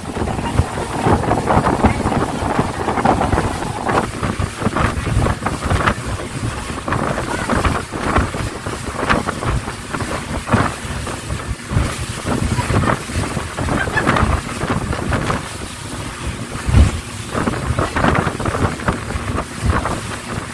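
Speedboat under way: wind buffeting the microphone over the drone of the boat's motor, with irregular thumps as the hull slaps the chop.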